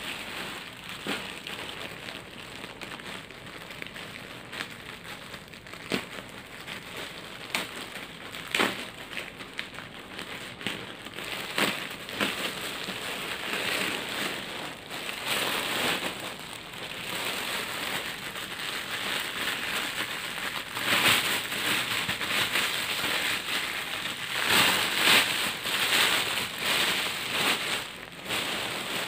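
Plastic parcel packaging being opened and handled: a black plastic mailer bag, then a clear plastic bag, crinkling and rustling with many sharp crackles. It grows louder in the second half.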